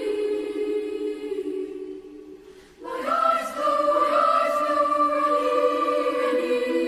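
Girls' choir singing in treble voices: a held chord fades to a brief hush about two and a half seconds in, then the choir comes back in loudly on a new sustained chord.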